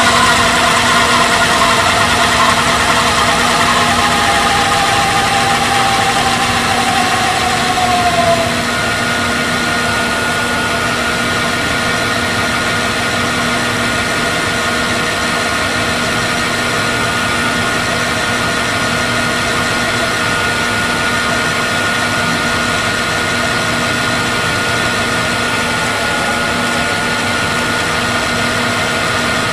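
VCR reel drive of an LG V194H DVD/VCR combo fast-winding a T-120 VHS cassette, a steady mechanical whir. Its whine falls in pitch over the first eight seconds or so. Then the sound changes abruptly to a slightly quieter, even hum with a steady higher tone.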